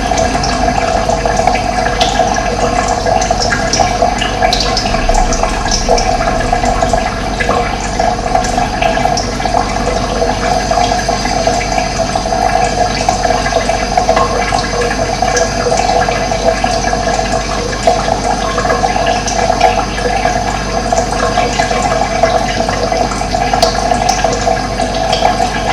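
Running water rushing steadily, with no breaks.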